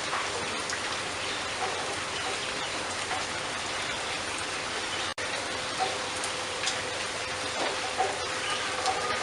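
Steady hiss of rain with faint, short chirps scattered through it and a faint steady tone underneath. The sound drops out for an instant about five seconds in.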